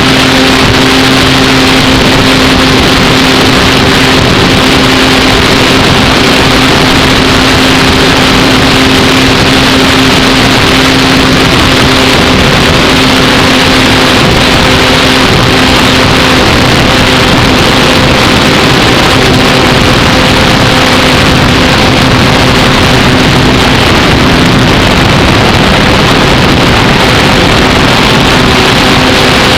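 Electric motor and propeller of an Apprentice S15e RC trainer plane running steadily in flight, heard from a camera mounted on the plane: a steady hum of a few held tones over a loud rushing noise.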